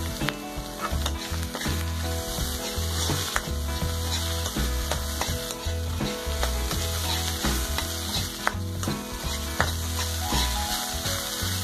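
Egg fried rice sizzling in a hot metal wok while a metal spatula stirs and tosses it, with frequent scrapes and knocks of the spatula against the wok.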